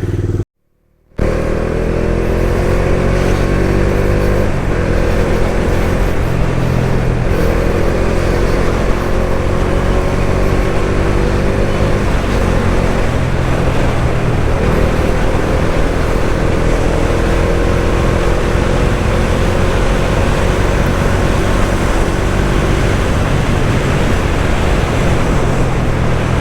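Bajaj Dominar motorcycle engine running on the move, its pitch climbing slowly through each gear and dropping back at every shift, over a steady rush of wind on the microphone. The sound breaks off briefly just after the start.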